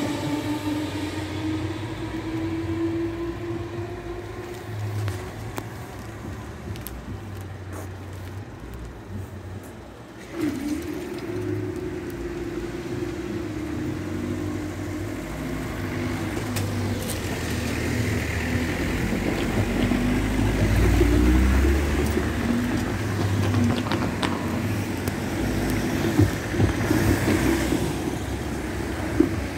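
Merseyrail electric train moving off, its motor whine rising in pitch and fading. About ten seconds in, the level crossing's warning alarm starts abruptly and keeps sounding as the crossing begins to close. A deep rumble swells partway through.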